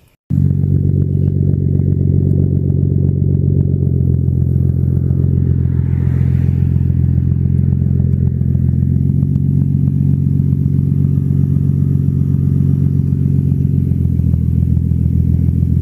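Car engine, the Skyline R32's RB25DET straight-six, running steadily at a constant speed with no revving. The sound starts abruptly at a cut.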